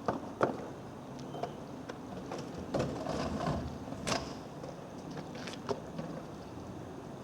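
Scattered knocks and clunks of equipment and compartment doors being handled on a fire engine, over a low steady hum.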